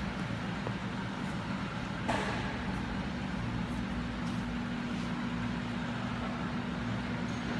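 Steady low background rumble with a constant hum, like distant traffic or machinery, and a faint tick about two seconds in.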